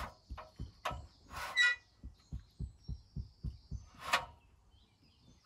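A run of soft, regular low thumps, about three to four a second, that stop just before four seconds in, with a few brief rustles among them.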